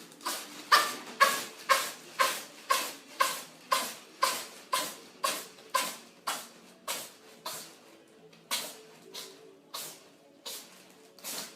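A cat sneezing in a fast fit: about twenty short, sharp sneezes, roughly two a second, growing weaker and more irregular over the last few seconds.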